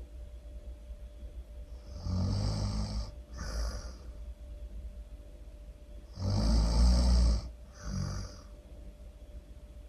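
Loud human snoring in two rounds, each a long rough snore followed by a shorter one. The second round, about six seconds in, is the loudest.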